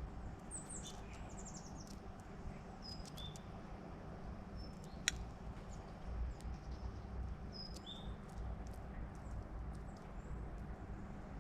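Small birds chirping outdoors: scattered short, high chirps and quick trills over a faint, steady low rumble, with one sharp click about five seconds in.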